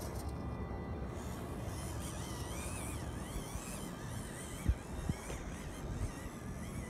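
Whine of a 1:18-scale RC crawler's small electric motor and gears, its pitch wavering up and down with the throttle as the truck climbs over rock, over a low rumble. Two short thumps stand out about two-thirds of the way through.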